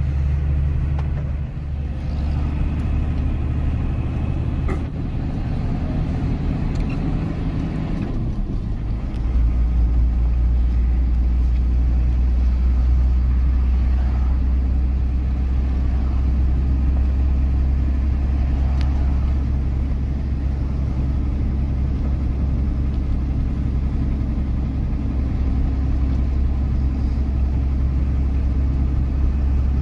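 Hino truck's diesel engine running steadily at cruising speed with tyre and road noise, heard from inside the cab. The low drone gets louder about nine seconds in and stays there.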